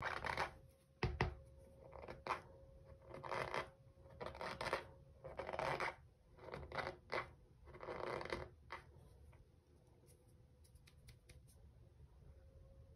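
A spoon pressing and scooping into packed cornstarch, giving squeaky crunches, about eight of them in the first nine seconds, then only faint small ticks.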